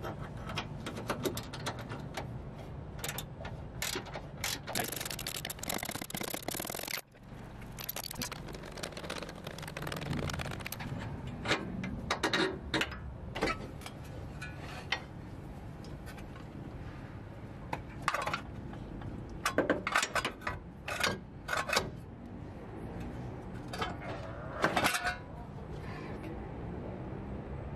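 Ratchet wrench clicking in runs on the suspension bolts of a Honda Civic, mixed with clinks, knocks and scrapes of the steel lower control arm and front suspension parts being worked loose and handled. Sharper, louder knocks come in the second half.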